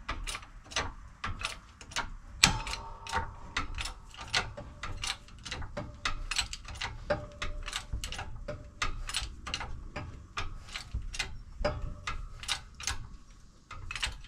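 Hydraulic bottle-jack shop press being pumped by hand: a steady run of sharp metal clicks and knocks, about two or three a second, with one louder knock about two and a half seconds in, as it presses a new transmission gear onto its shaft.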